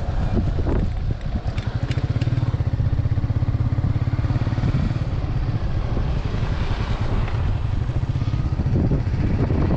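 Motorcycle engine running steadily under way, a fast low throb. A few short clicks come about two seconds in.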